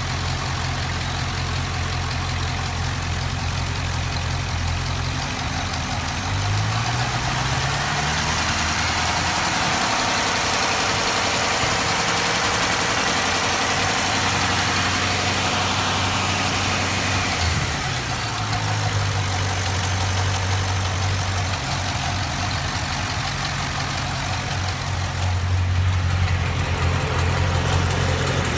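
GM LS7 7.0-litre V8 with a ticking noise, idling, then revved up about six seconds in and held near 1600 rpm before dropping back to idle around 17 seconds in. The engine is warm, oil at about 175 °F.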